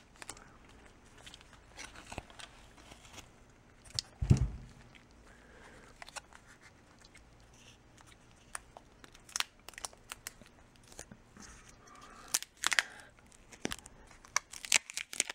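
A power bank's battery pack being handled and turned over: scattered rustling and crinkling of its insulating sheet with light clicks and knocks, and one louder thump about four seconds in.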